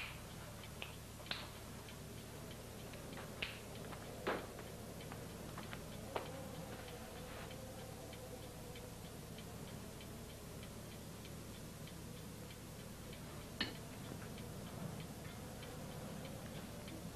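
A clock ticking steadily, about two ticks a second, with a few louder knocks and clicks among the ticks, the loudest about four seconds in.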